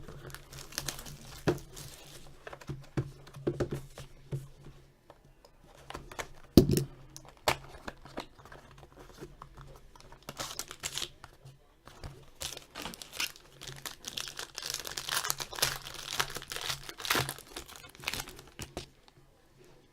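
Plastic shrink wrap and packaging on a box of hockey trading cards being torn and crinkled open, with scattered clicks and one sharp knock about six and a half seconds in. The crinkling is thickest in a stretch late on.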